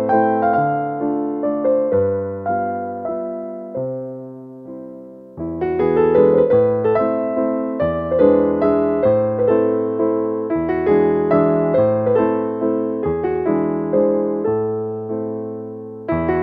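Background piano music: a gentle keyboard melody over chords, each note struck and fading, thinning out for a moment before it fills out again about five seconds in.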